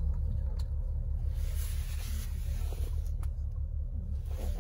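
Steady low rumble of a car driving on the road, with a brief swell of hiss in the middle.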